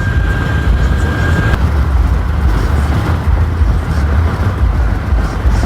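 Road noise inside a moving vehicle: a steady low rumble from engine and tyres, with a thin steady high tone that stops about a second and a half in.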